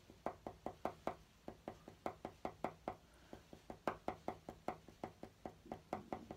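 Pen tip tapping rapidly on paper over a board while stippling dots for a pointillism drawing: a quick, slightly uneven patter of light taps, about five or six a second.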